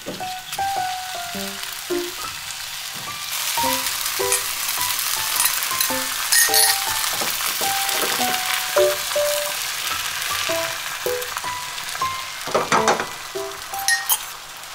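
Beaten egg poured from a mug into a hot frying pan of spinach and tomato slices, sizzling. The sizzle starts about three seconds in and swells a little before the end as more egg goes in, with background music throughout.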